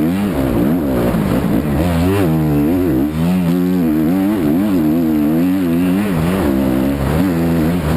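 Motocross bike engine revving hard, its pitch climbing and dropping over and over as the throttle is worked.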